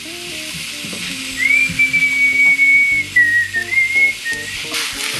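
A whistled tune, a few held notes with small dips in pitch, over background music. Mushrooms, onions and garlic sizzle in olive oil in a saucepan underneath, louder near the end.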